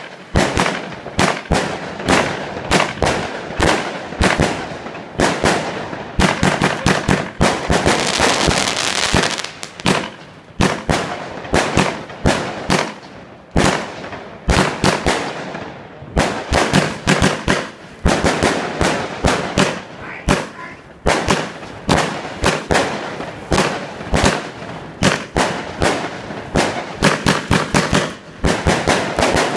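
Weco Black Ice 47-shot firework cake firing: a rapid stream of sharp launch thumps and bursting reports, several a second, with a denser crackling stretch about eight seconds in and a couple of short pauses.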